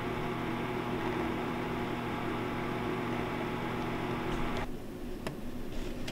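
A household appliance motor hums steadily with a hiss of moving air, then shuts off abruptly about three-quarters of the way through, leaving a few faint clicks.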